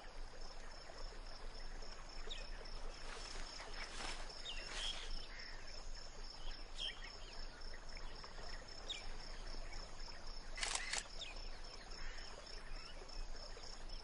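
Quiet riverside outdoor ambience with scattered short bird chirps. About ten and a half seconds in comes a quick burst of single-lens reflex camera shutter clicks.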